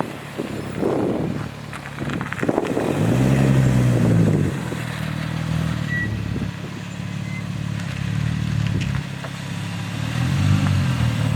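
Infiniti G35's V6 engine running, blipped up and back down about three seconds in and again near the end, steady in between.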